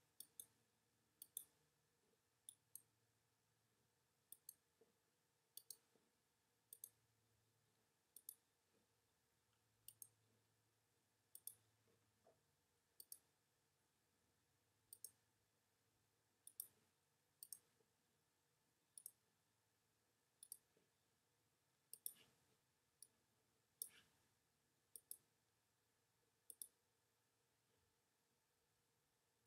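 Faint sharp clicks over near silence, about one every second and a half, many of them coming as quick double clicks.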